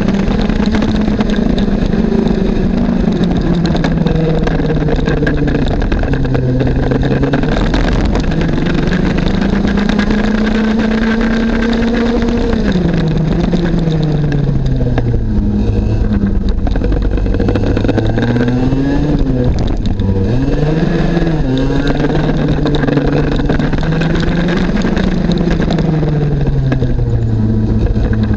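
IAME X30 125cc two-stroke kart engine heard from onboard at racing speed. Its note climbs steadily for about twelve seconds, drops sharply as the driver lifts for a corner, then rises and falls again through the following bends. Wind rushes over the microphone throughout.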